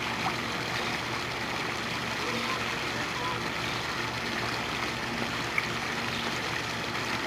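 Swimming-pool water gently lapping and sloshing around a small child paddling in arm floats, over a steady even hiss with a faint low hum beneath it.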